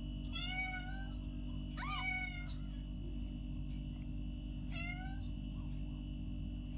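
Very young kitten mewing: three high-pitched calls about two seconds apart, each falling in pitch, over a steady low hum.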